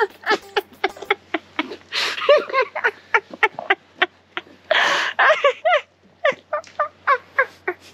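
A young man laughing uncontrollably in a long run of short, high-pitched laughs, three or four a second, with a couple of longer wheezy breaths between them.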